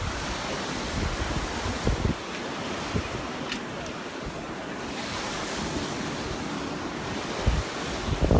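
Gulf surf washing steadily onto the beach, with wind gusting on the microphone about two seconds in and again near the end.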